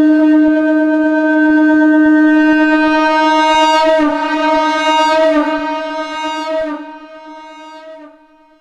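Shankh (conch shell) blown in one long, steady note pitched at D#. About halfway through the tone wavers, then it fades and dies away shortly before the end.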